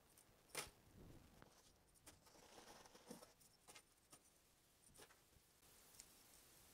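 Faint, scattered clicks and light clinks of small nickel-finish metal swivel clasps knocking together as they are handled and counted by hand, the sharpest click about half a second in.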